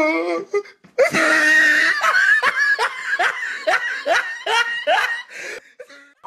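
A person laughing hard: a long run of short, rising "ha" bursts, about two a second, that starts about a second in and dies away near the end. A wavering, drawn-out voice is heard at the very start.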